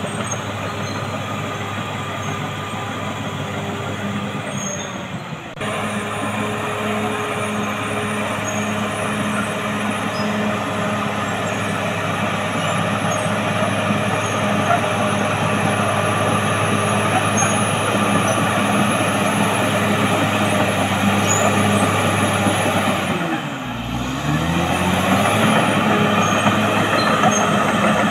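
Caterpillar D6R XL crawler dozer's diesel engine running steadily under load as it pushes dirt. About 23 seconds in, the engine note drops sharply and climbs back up as the revs fall and pick up again.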